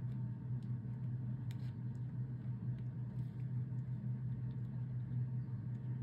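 Steady low background hum, with a few faint clicks and taps as small paper pieces are handled and pressed into place.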